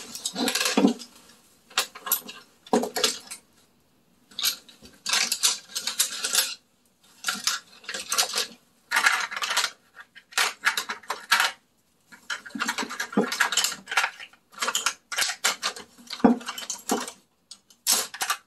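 Small hard cosmetic containers clattering and rattling in irregular bursts as someone rummages through makeup, searching for a missing eyeliner.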